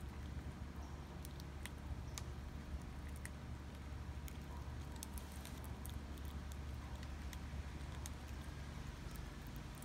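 A gray squirrel feeding from a wooden feeder box: small irregular clicks and crackles as it rummages and chews, over a steady low rumble.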